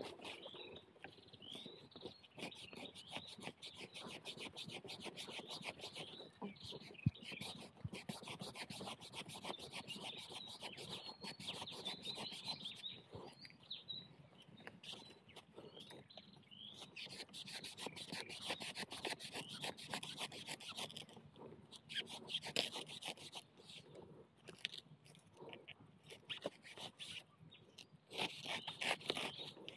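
Rustling and crackling of dry bamboo leaves and stalks being pushed through and handled, with birds chirping on and off. One sharp click stands out about seven seconds in.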